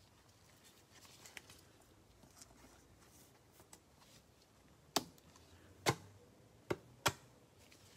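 Trading cards being handled on a table: faint rustling and sliding, then four sharp taps in the second half.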